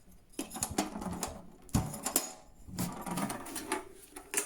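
Steel ammo box being opened: its latch and lid give a string of metallic clicks and clanks, the loudest knock a little under two seconds in.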